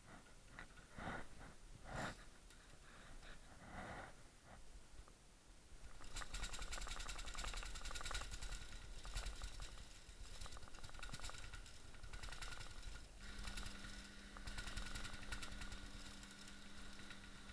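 Airsoft electric GPMG support gun firing long full-auto bursts, a fast mechanical rattle that starts about six seconds in. A few knocks come before it, and a low steady hum joins in the second half.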